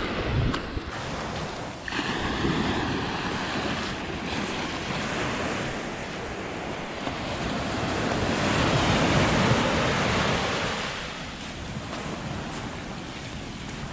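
Sea waves breaking and washing up the shore: a steady surf wash that swells a little past halfway and eases off near the end, with wind buffeting the microphone.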